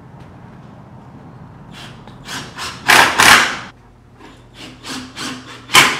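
Cordless drill driving wood screws through a wooden bed frame's side member into its struts, in short loud bursts. The bursts come in two runs, starting about two seconds in and again from about four and a half seconds.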